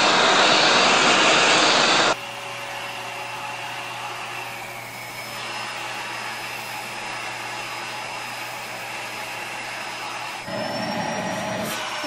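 Vacuum cleaner running, loud at first. About two seconds in it cuts to a second, quieter vacuum with a steady hum and a thin high whine, which grows louder again near the end.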